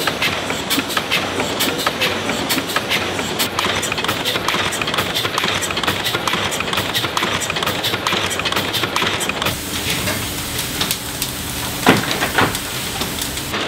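Cross compound steam mill engine running: a dense, rapid clatter of valve gear and rods over a steady steam hiss. About nine and a half seconds in the sound changes, and near the end come two loud clanks, heard by the Cornish boiler as it is being fired.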